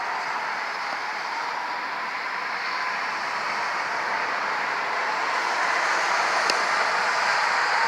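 Steady road traffic noise that swells about five seconds in, with the faint steady tone of a distant Hörmann ECN outdoor warning siren under it. A single sharp click near the end.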